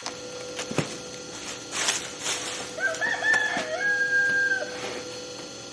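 A rooster crowing: a few short notes followed by one long held note. It comes after a few clicks and two brief rustling noises.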